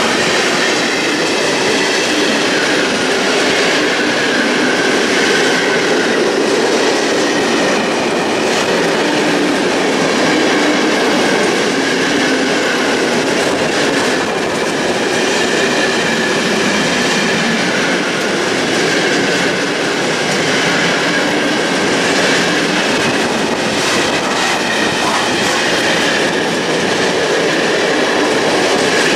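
Freight train's loaded container flat wagons rolling past close by: a steady, loud rumble and clatter of wheels on the rail joints, with a faint high ringing over it.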